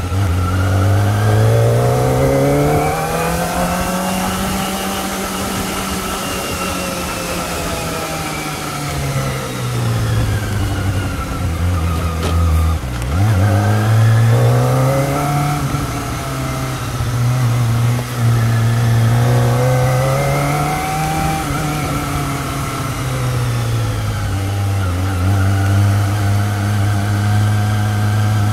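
Kawasaki Ninja ZX-25R's 250 cc inline-four engine heard from the rider's seat at low road speed, its pitch rising and falling with the throttle several times. The note drops lowest about twelve seconds in, then climbs again.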